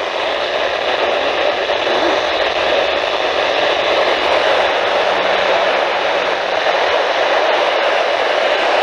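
Radio static: a steady hiss from a weather radio receiver picking up no clear signal.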